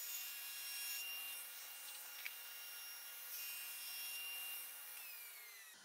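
Table saw running and cutting through a white-faced particleboard panel on a crosscut sled, a steady machine hum with a hiss of cutting. Near the end the pitch falls, then the sound cuts off abruptly.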